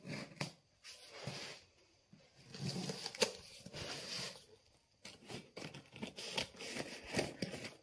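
Scissors slitting the clear packing tape along the seam of a cardboard box: repeated scraping, crackling strokes of the blade through tape and cardboard, with a few sharp snips.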